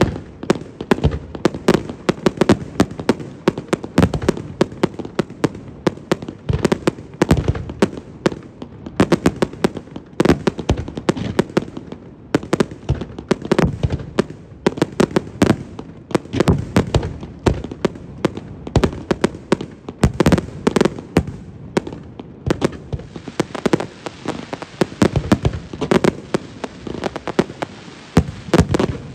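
Fireworks display: a continuous barrage of aerial shell bursts, several bangs a second mixed with crackling.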